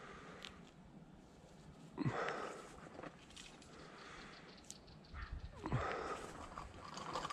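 Quiet rustling and movement in dry brush, with two louder brushing sounds, one about two seconds in and one near six seconds.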